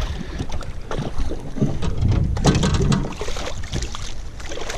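Wind buffeting the microphone and water slapping against a small boat's hull, with a few short knocks of gear being handled as a fish is brought to the net.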